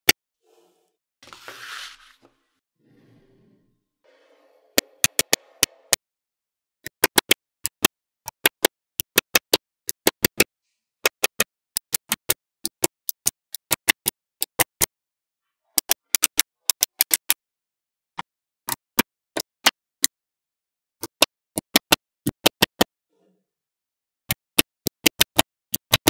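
Small magnetic balls clicking sharply into place as strips of them are snapped onto a magnetic-ball wall, in quick clusters of three to six clicks with short pauses between. A brief hiss comes about one and a half seconds in.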